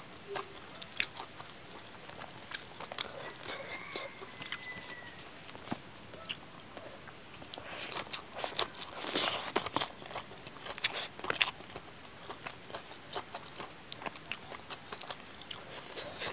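Close-miked eating sounds: chewing and wet lip-smacking on mouthfuls of chicken curry and rice, with scattered mouth clicks and a busier spell of chewing about eight to ten seconds in.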